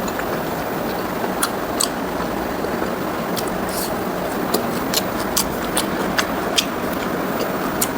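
Close-miked eating: a person chewing pork ribs and rice, with many short, sharp wet clicks and smacks at irregular intervals over a steady background hiss.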